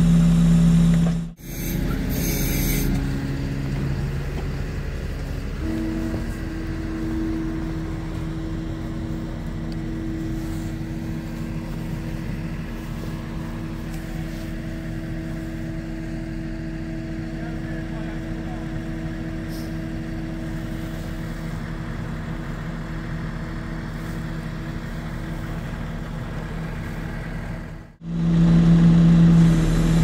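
Heavy truck engine running steadily. A short hiss of air comes about two seconds in, and the sound drops out briefly at edits about a second and a half in and near the end, where a louder, deeper engine tone returns.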